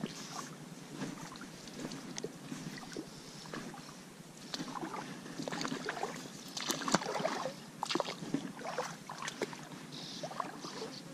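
Water sloshing and splashing at the riverbank, mixed with irregular small clicks and rustles, busiest between about four and a half and nine and a half seconds in.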